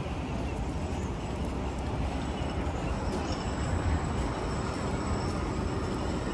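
Steady outdoor city background noise, mostly a low rumble with no distinct events, with faint thin high tones joining about three seconds in.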